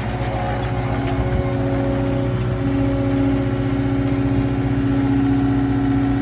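Cat 299 compact track loader with a Denis Cimaf mulching head running steadily under power, with a steady hum that grows stronger about two and a half seconds in.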